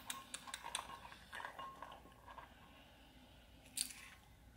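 Quiet eating sounds from sauce-coated fried chicken: soft wet clicks and mouth smacks for about the first second and a half, then near quiet, with one short sharp sound near the end.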